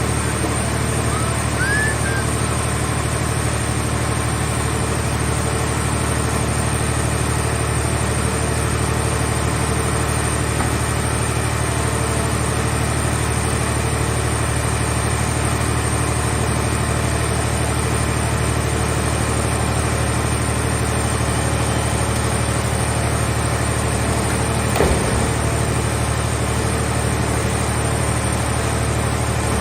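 Power unit of a portable scrap-car-shell baler running with a steady low drone, with one brief knock near the end.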